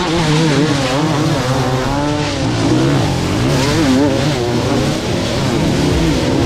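Several enduro motorcycle engines running together, their pitch rising and falling as they are revved.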